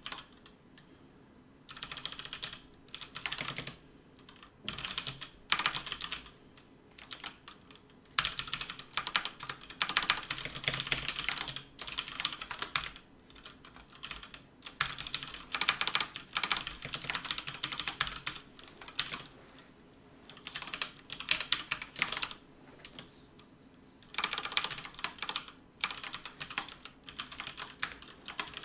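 Typing on a computer keyboard: runs of rapid keystrokes broken by short pauses of a second or two.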